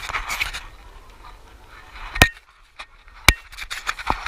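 Handling noises while working over a car's engine bay: rustling and scraping, then two sharp knocks about a second apart, each with a brief ring, and a lighter click near the end.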